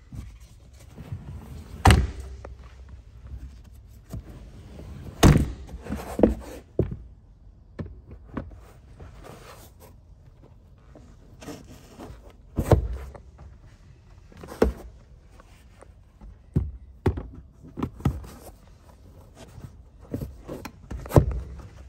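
2018 Mitsubishi Outlander third-row seats being raised and latched and their headrests fitted: a series of plastic and metal thunks and clicks. The loudest knocks come about two, five and thirteen seconds in, with smaller clicks between.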